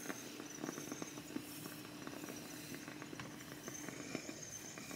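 Faint hiss and irregular small crackles from a facial-style hair steamer running, with a faint steady hum. Wet, conditioner-coated hair rustles under the fingers and comb.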